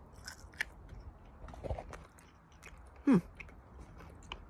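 A person chewing a chewy sweet, with small wet mouth clicks. About three seconds in, a short loud vocal sound falls in pitch.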